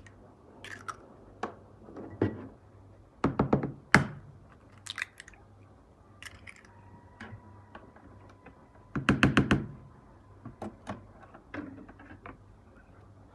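Kitchen utensils and bowls knocking and clattering while banana bread ingredients are handled and mixed: a few sharp knocks about three seconds in, a single louder one a moment later, and a quick run of about six knocks around nine seconds in, with lighter clicks between. A faint steady tone sounds in the middle.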